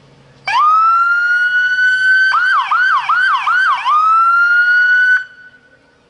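Police car siren: about half a second in it rises into a wail and holds high, then switches to a fast yelp of rapid up-and-down sweeps, about three a second, goes back to the held wail, and cuts off suddenly about five seconds in.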